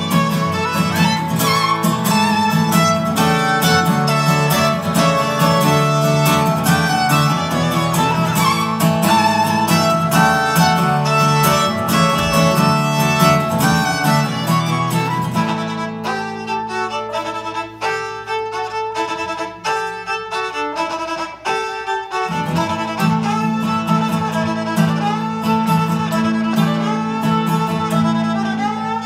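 Live instrumental duet of bowed violin with strummed acoustic guitar. A little past the middle the low strummed accompaniment drops out for several seconds, leaving the violin more exposed, then comes back in.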